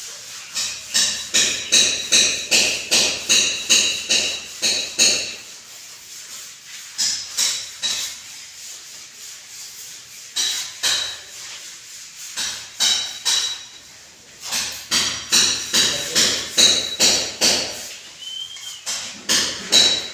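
Hammer blows at about two a second, each with a ringing metallic tone, in several runs broken by short pauses.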